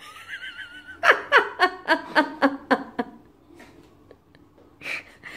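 A person laughing: a short warbling high-pitched cry, then a run of quick laughing bursts, about four a second, lasting about two seconds, and one more short burst near the end.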